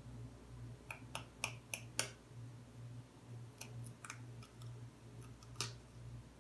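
Light, sharp taps on a raw egg's shell to crack a small hole in it: five quick taps about a second in, then a few more spaced out.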